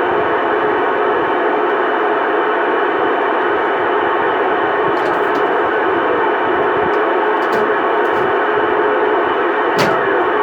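CB radio channel held open by a keyed transmitter with no voice: a loud, steady hiss through the radio speaker with several steady whining tones in it. Near the end a click is followed by a falling whistle.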